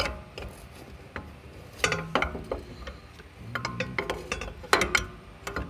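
Metal parts of a BMW i3's rear suspension clinking and knocking against each other as they are worked into place by hand, in short clusters of sharp knocks with brief ringing about 2, 4 and 5 seconds in.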